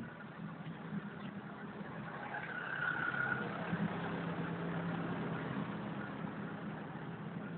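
A motor vehicle's engine running with a steady low hum, growing louder about three seconds in and then slowly fading.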